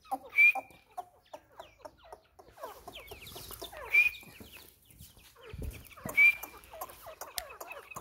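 White teetar (francolins) calling: a sharp, short high call three times, over a steady scatter of soft, quick falling peeps.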